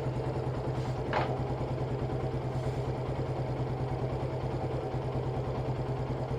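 Motorcycle engine idling steadily, with an even low pulsing beat. A brief faint clink about a second in.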